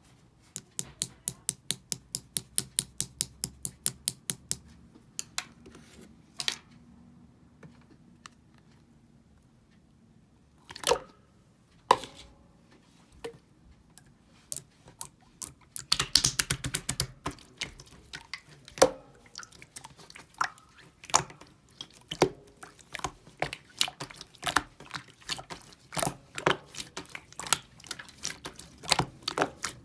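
Slime being handled by hand: a fast, even run of sharp clicking pops, about four or five a second, in the first few seconds. After a quieter spell come scattered squishes and crackling pops, which grow denser and louder from about halfway on.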